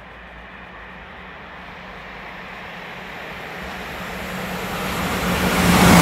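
Electric locomotive hauling passenger coaches, approaching at speed: a rushing rumble with a low steady hum that grows steadily louder until the locomotive reaches the platform near the end.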